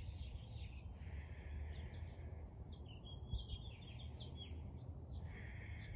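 Birdsong: short chirping phrases come and go several times over a low, steady outdoor rumble.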